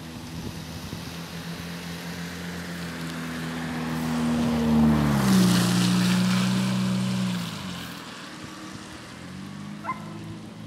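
Fløibanen funicular car running on its track: a steady humming drone whose pitch drops about five seconds in, while a rushing noise swells for a few seconds and then eases. A short high-pitched blip comes near the end.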